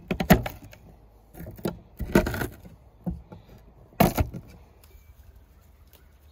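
Peeled garlic cloves crushed under the flat of a chef's knife on a wooden cutting board: about five short crunches and knocks over the first four seconds or so.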